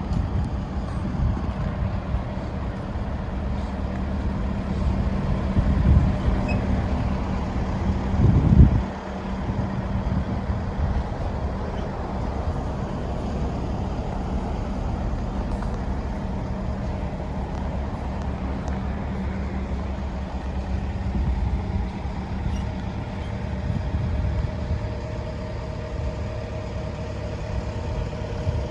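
Diesel engine of a Hitachi ZX135US-3 hydraulic excavator running steadily. It swells briefly twice, around six and eight and a half seconds in. A higher steady tone joins near the end.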